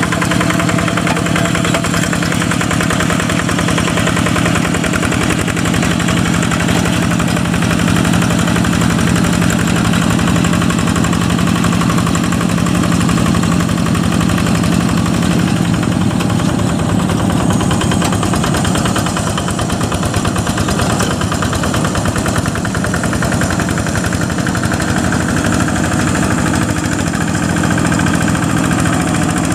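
Single-cylinder Yanmar diesel engine of a two-wheel hand tractor running steadily with a fast, even chugging while it pulls a moldboard plough through soft, wet paddy soil.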